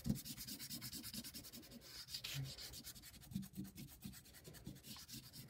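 Chalk pastel scribbling back and forth on paper in quick, even strokes: a faint, scratchy rubbing.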